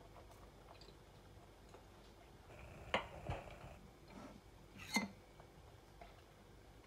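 A metal spoon clicking against a glass dish while scooping a soft pudding: two sharp clicks, about three and five seconds in, over a quiet background.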